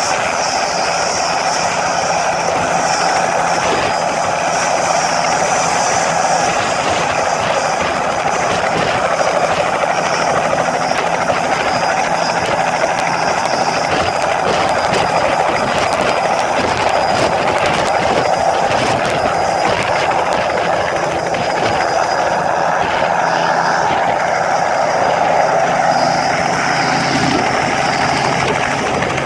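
Bell 206B JetRanger III helicopter running at a steady pitch: turbine whine and rotor noise from its two-blade main rotor, with a thin steady high tone over a rough hiss.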